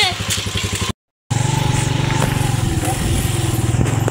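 Motorcycle engine running steadily close by, a low even rumble. The sound drops out completely for a moment about a second in.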